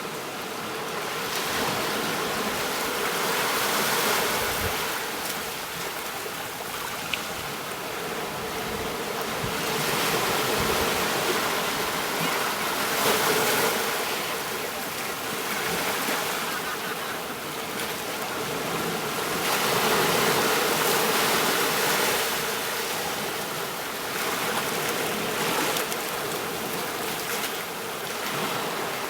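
Ocean surf washing onto a beach: a steady hiss of breaking waves that swells and fades every several seconds.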